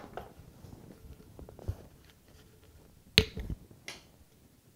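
Plastic glue bottle and applicator caps from a Rockler glue applicator set being handled and swapped: scattered small clicks and knocks, with one sharp plastic click about three seconds in and a smaller one just after.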